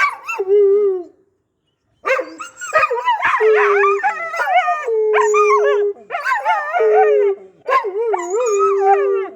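Dog howling and whining, a run of loud wavering, yodel-like cries, several ending on a long held note.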